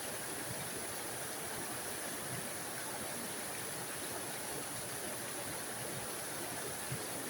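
Small forest waterfall, water splashing and rushing in a steady, even hiss.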